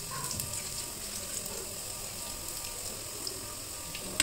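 Sliced onions frying in oil in a pot, a steady faint sizzle, with one short knock near the end.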